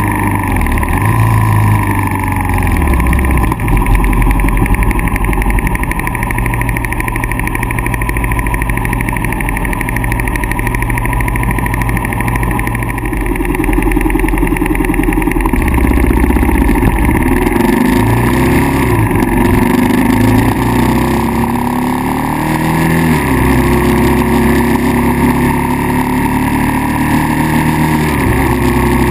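Kawasaki KLR650's single-cylinder engine running, its pitch rising and falling several times in the second half as the throttle and revs change.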